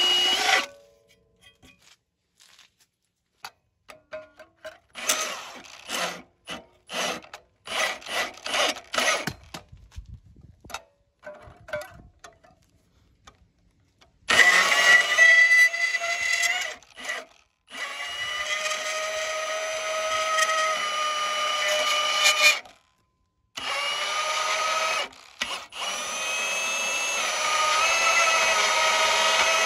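Cordless portable band saw cutting rusty steel plate: a steady motor whine that stops just after the start, then clicks and knocks of handling for several seconds. The saw then runs again under load for about eight seconds, stops briefly and starts cutting again.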